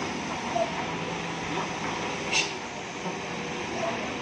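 Hino diesel dump truck crawling round a steep hairpin, its engine running under load amid wet-road and traffic noise, with a short sharp hiss of air about two and a half seconds in.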